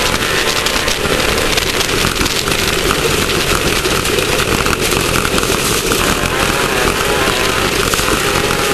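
Class 1600 off-road race car's air-cooled 1600 cc VW engine running hard at speed, its pitch wavering up and down, under a constant dense crackle and rattle of the car being shaken over rough ground.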